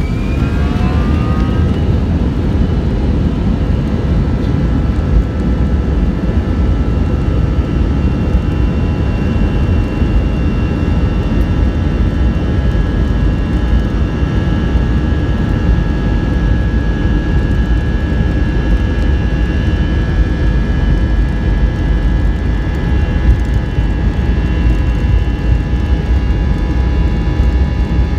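Airbus A321 jet engines at takeoff thrust, heard inside the cabin: a heavy, steady rumble with a steady whine on top. The whine rises in pitch over the first couple of seconds as the engines finish spooling up for the takeoff roll.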